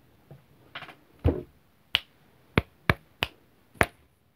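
Fingers snapping five times in a loose beat, a count-in before singing. A soft thump comes a little over a second in.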